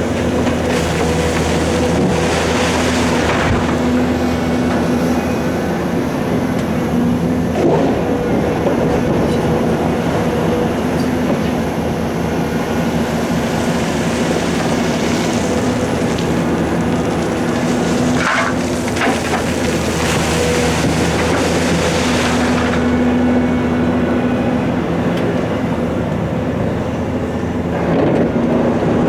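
Heavy diesel engines of a Volvo EC700 excavator and a Perlini 655 quarry dump truck running at a steady speed, with several bursts of scraping and clatter as rock is loaded.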